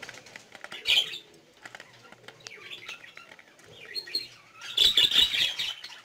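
Budgies flapping their wings and chirping in the aviary, in irregular bursts, the loudest flurry of wingbeats and chirps coming about five seconds in.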